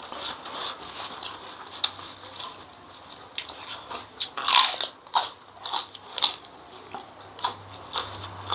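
A person eating: chewing with a series of sharp, irregular crunches, the loudest about four and a half seconds in.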